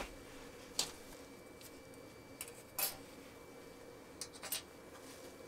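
Quiet handling at a workbench: a few light, sharp taps and clicks, as of small metal parts being moved or set down, over a faint steady hum.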